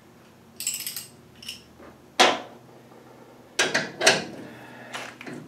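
Irregular metallic clicks and clacks from hand tools and metal parts being handled. The sharpest is a single clack a little past two seconds in, with a quick run of clicks around four seconds.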